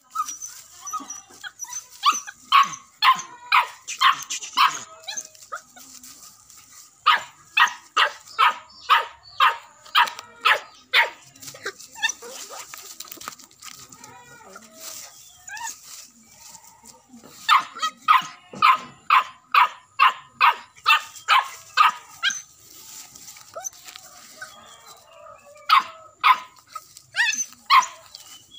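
A young hunting dog barking in quick runs of about two barks a second, four bouts with short pauses between.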